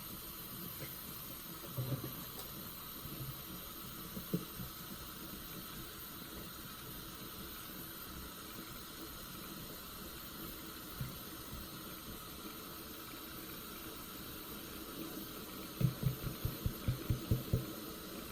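Wet, soapy sponge being squeezed: a few soft squelches over a steady hiss, then near the end a quick run of about eight squeezes, roughly four a second.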